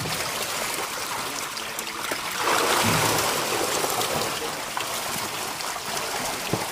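Water churning and splashing in a small tarp-lined pond, stirred up by catfish moving at the surface, with a louder surge about two and a half seconds in.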